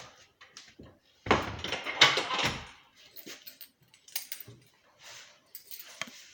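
A door being handled indoors: a loud, noisy rush of sound about a second in that lasts about a second and a half, with scattered small clicks and rustles around it.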